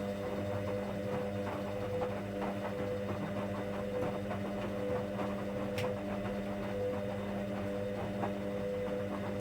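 1959 Hoover washing machine running: a steady motor hum with an on-off whine that pulses every half second or so, and fast light rattling ticks.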